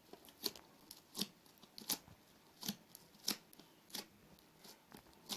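Homemade slime being worked by hand: a faint, even series of short crisp snaps, eight of them, about one every two-thirds of a second.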